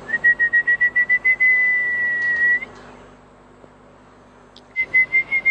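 A person whistling one high note. It stutters rapidly at first, holds steady for about two and a half seconds, then stops, and a second whistle begins near the end.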